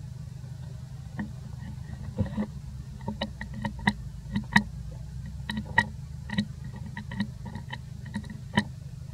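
An irregular run of short, sharp, wet-sounding mouth clicks and smacks from a nursing macaque mother and her newborn, beginning about a second in, over a steady low hum.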